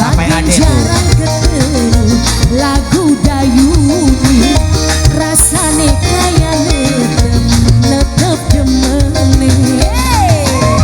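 Live band music for a regional dangdut-style song: a melody line full of pitch bends and slides over a steady bass and drum beat, with a descending slide near the end.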